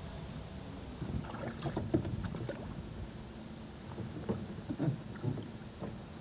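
Water lapping and slapping against the hull of a small rowboat, with scattered light knocks, over a low rumble of wind on the microphone.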